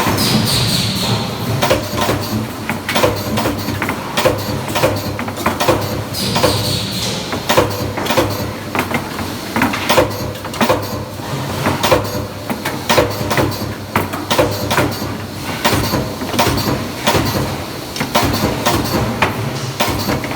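Spot welding machines at work on metal racks: rapid, irregular clanks and clicks over a steady machine hum, with a short falling whine at the start and again about six seconds in.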